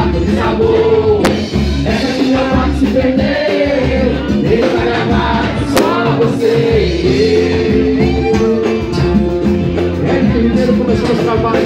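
Live pagode band playing, a singer's voice over a steady beat of bass, guitar and percussion. There are two sharp clicks, about a second in and near the middle.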